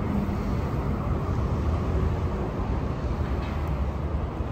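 Steady noise of road traffic on a busy highway.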